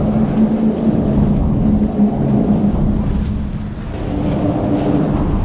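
Wind buffeting the microphone in a steady low rumble, over the steady hum of a bow-mounted electric trolling motor that steps up in pitch about four seconds in as it works to hold the boat in place.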